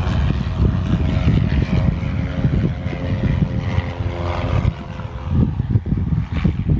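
Light propeller airplane engine running with a steady hum that fades out about five seconds in, under heavy wind buffeting on the microphone.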